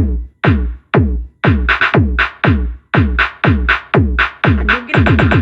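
Electronic dance remix with a drum-machine beat, heavy kick hits about twice a second, each carrying a downward pitch sweep; the hits come faster near the end.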